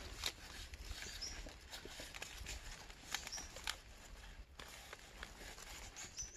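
Faint, scattered scrapes and crackles of cinnamon bark being peeled and shaved from the trunk by hand. A few short high chirps and a low rumble run underneath.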